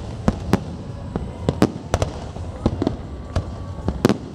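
Fireworks display: aerial shells bursting in a rapid, irregular series of sharp bangs over a steady low rumble, the loudest bang near the end.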